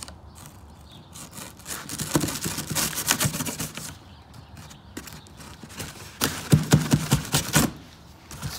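Serrated knife sawing through packing tape and cardboard along a box seam: two stretches of rapid scratchy crackling and clicking, the second louder.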